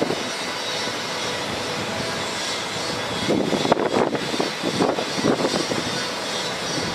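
A Cummins 6.7L ISB diesel engine runs steadily, driving the PTO hydraulic pump as the bucket boom moves, with a constant hiss and some uneven bursts of noise in the second half.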